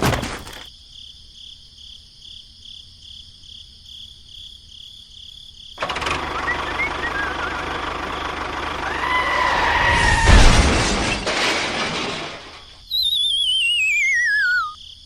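Edited sound effects: a rushing noise builds to a loud thump about ten seconds in, then a single warbling whistle slides down in pitch near the end.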